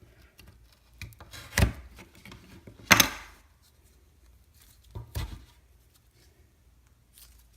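Blade cutting into the packed cardboard tube of a Whistling Pete firework: three sharp scraping strokes about a second and a half to two seconds apart, the middle one loudest, with faint handling between them.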